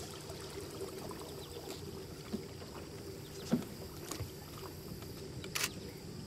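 Canoe paddle working calm water: faint swishes and drips from the strokes, with a few short sharp clicks and a brief louder splash near the end.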